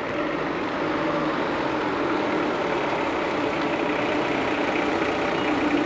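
Minivan engine running steadily as the van pulls up and stops.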